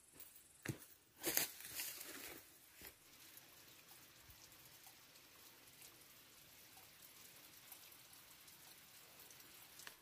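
A short rustling crunch in the undergrowth about a second in, then a faint, steady trickle of water running and dripping over a wet, mossy rock face.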